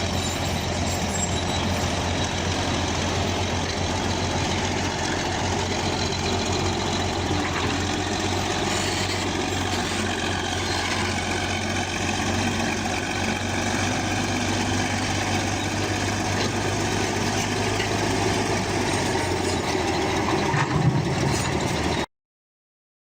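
Bulldozer's diesel engine running steadily, a constant low drone with the clatter and noise of the machine working. It stops abruptly near the end.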